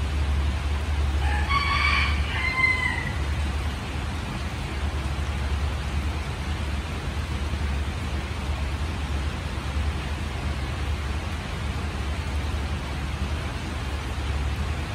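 Steady rain hiss over a low constant rumble. About a second in, an animal gives a single drawn-out call lasting about a second and a half, its pitch bending near the end.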